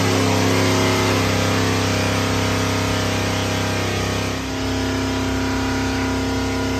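Freshly built LS V8 running steadily at about 4,000 rpm, held under load on an engine dyno. Its tone shifts slightly about four and a half seconds in.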